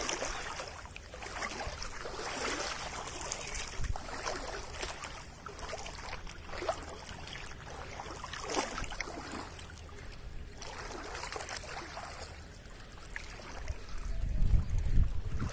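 Floodwater splashing and trickling in an uneven, irregular patter, with a low rumble near the end.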